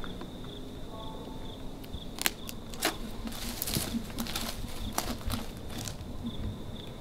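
Crickets chirping in a steady high trill, with scattered sharp snaps and crackles of footsteps shifting on dry brush and rubble.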